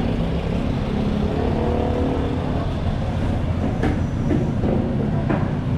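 Motor vehicle engine running close by: a steady low rumble of road traffic.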